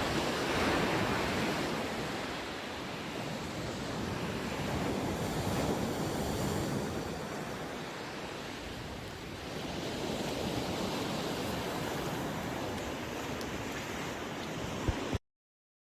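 Sea waves washing and breaking on the shore, the noise swelling and easing over several seconds, with some wind on the microphone. It cuts off suddenly near the end.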